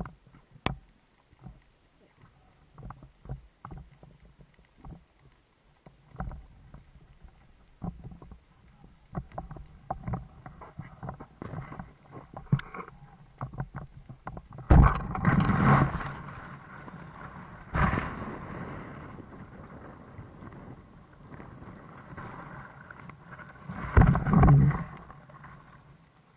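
Underwater sound picked up at a speargun-mounted camera on a breath-hold dive: scattered clicks and crackles, then two louder rushing noises, one lasting a couple of seconds about halfway through and a shorter one near the end.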